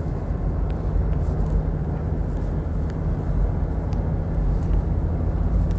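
Steady low rumble of a car driving along a smooth road, heard from inside the cabin: engine and tyre noise with no changes in speed.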